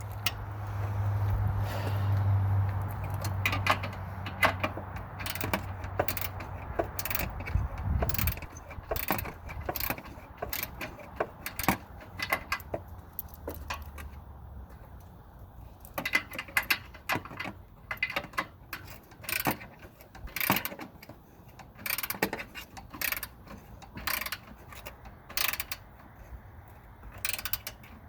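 Hand tools on car body bolts: a socket ratchet clicking and metal knocking in irregular spells, with a low hum during the first several seconds.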